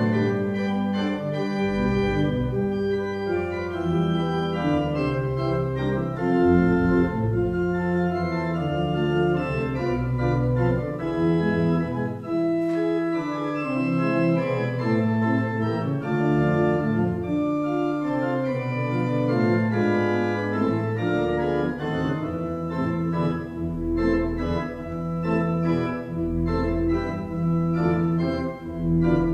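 Church pipe organ playing a piece: sustained chords that change every second or so, with deep bass notes coming and going underneath.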